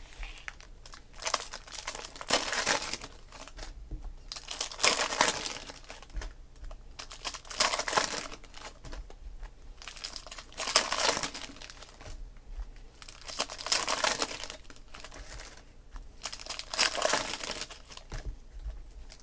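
Foil trading-card pack wrappers (2016 Panini Prizm football) being crinkled and torn open by hand, in about six short bursts a few seconds apart.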